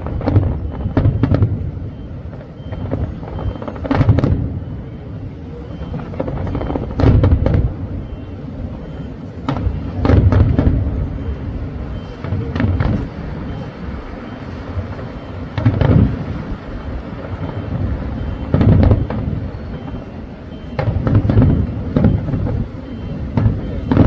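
Fireworks display: aerial shells booming about every three seconds, with crackling and lower bursts continuing between the booms.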